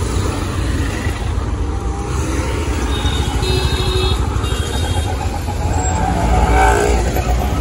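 Busy street traffic: CNG auto-rickshaws, cars and a truck running close by, a steady engine and road rumble with a slightly louder passing vehicle about two-thirds of the way in.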